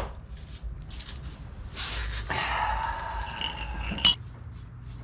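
Sharp metal knocks, one at the start and one about four seconds in, from hammering on the Jeep's wheel hub and steering knuckle. Between them are about two seconds of metallic scraping.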